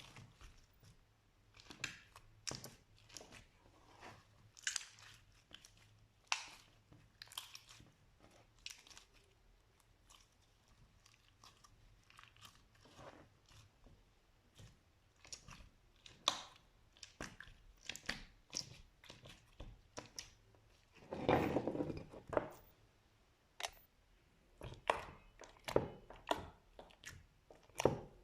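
Slime being worked by hand, giving irregular crackling pops and crunches, with a longer, denser run of crackles about three-quarters of the way through.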